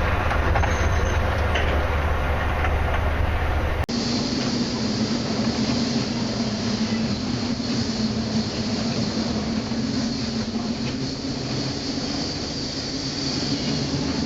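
Loud, steady rumbling noise. About four seconds in it cuts abruptly to a steady low hum under continuous hiss.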